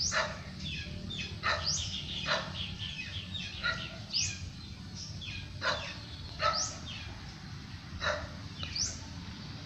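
Birds calling: about a dozen short chirps that each sweep steeply down in pitch, coming at irregular intervals, over a steady low rumble.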